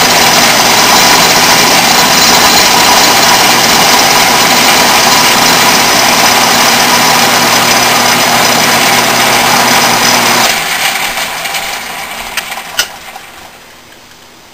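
Atlas metal lathe running steadily under automatic feed on a final turning pass. About ten seconds in it is switched off and fades as it coasts down, with a single sharp click near the end.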